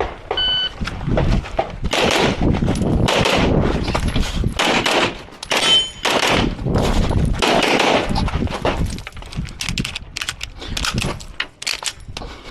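A shot timer beeps once, then a pistol fires string after string of rapid shots for the rest of the stage.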